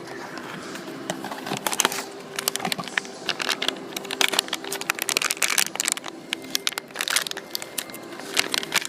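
Packaging being torn and unwrapped by hand to get at a blind-boxed vinyl figure: a dense run of irregular crinkling and crackling clicks.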